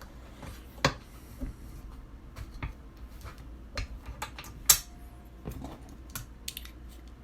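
Scattered small clicks and clinks of brass cartridge cases and a Lyman case trimmer being handled, with the sharpest about a second in and a louder one a little past halfway.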